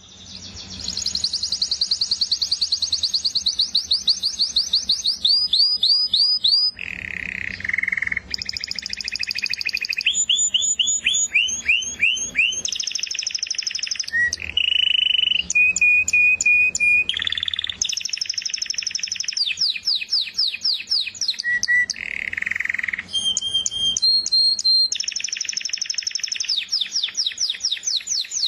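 Canary singing a continuous song of rapid trills and repeated-note phrases, each phrase held for a second or two before switching to another, beginning about a second in.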